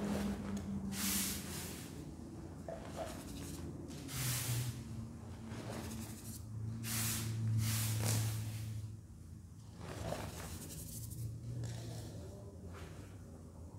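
Handfuls of dry powdered cleanser and baking soda sifting through fingers and pouring onto a soft powder heap, each pour a soft hiss, several times over. A low steady hum sits underneath.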